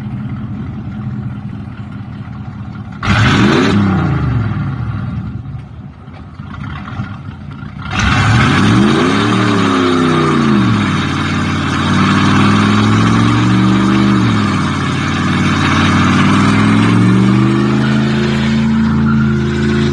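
Third-generation Camaro Z28's V8 engine revved up and let fall back twice, then idling with a few lighter blips of the throttle.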